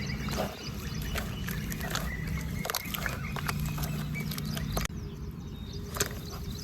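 Small chunks of white sand-cement concrete crumbling in water, with irregular sharp clicks and crackles over a steady low rumble.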